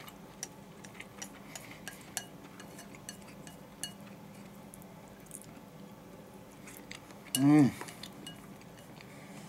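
Wooden chopsticks clicking and scraping against a ceramic rice bowl as food is picked up and eaten, in scattered light taps. About seven seconds in comes one short vocal sound from the eater, falling in pitch and louder than the taps.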